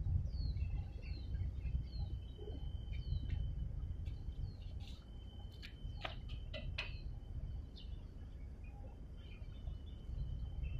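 Small birds chirping, a run of short high falling calls about once a second, with a few sharp clicking notes around the middle, over a steady low rumble.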